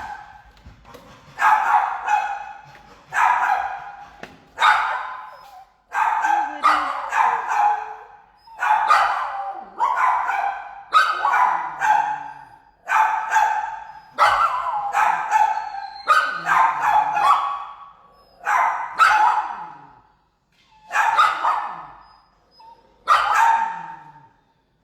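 A dog barking over and over, a single bark or a quick pair about every one to two seconds, stopping near the end.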